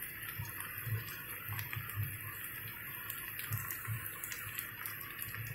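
Sliced okra and onion frying in mustard oil in a kadhai: a steady low sizzle with scattered small crackles.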